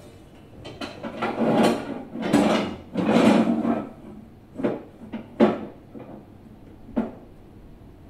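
A 43-inch Xiaomi TV A Pro being shifted and seated on a wall-mount bracket. For the first few seconds there is scraping and rubbing as the set slides on the bracket, then three short sharp clunks as it knocks into place.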